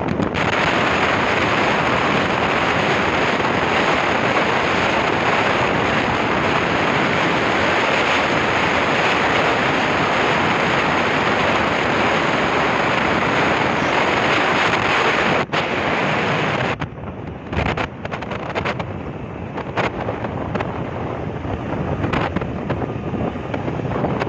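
Wind rushing over the microphone of a camera held in a moving vehicle at highway speed, a loud steady rush mixed with road noise. About a second past the middle it dips sharply, then drops to a weaker, gusty, choppy rush.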